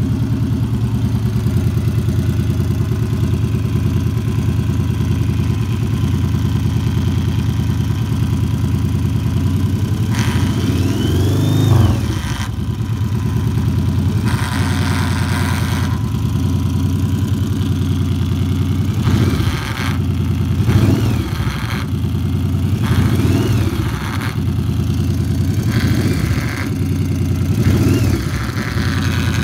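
2001 Yamaha V Star 1100 Classic's air-cooled V-twin idling steadily, then blipped about six times in the second half, the revs rising and falling each time. An odd buzz from the crankcase comes in as the throttle opens; its cause is unknown to the owner.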